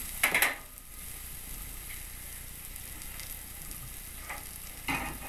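Steaks sizzling steadily on a hot cast iron grill pan, with the sizzle briefly louder twice: about half a second in and again near the end.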